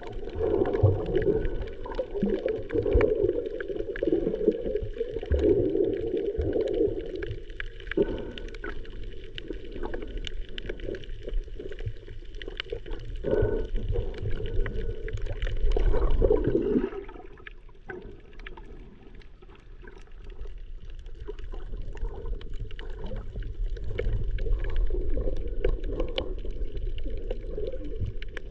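Muffled underwater water sound: sloshing and gurgling with scattered small clicks. It drops quieter for a few seconds about two-thirds of the way through.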